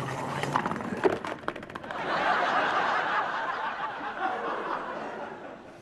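Studio audience laughing, dying away towards the end. About a second in there is a quick run of clicks from a salad spinner being turned.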